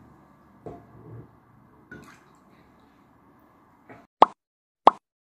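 Mare's milk being ladled from an enamel pot into bowls: faint drips and a few soft knocks of the ladle. Near the end come three sharp, short clicks about two-thirds of a second apart, with dead silence between them.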